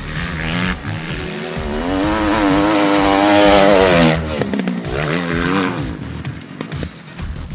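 Motocross bike engine revving up hard, rising in pitch and getting louder, then cut off abruptly about four seconds in. A second bike's engine follows briefly, falling in pitch as it passes.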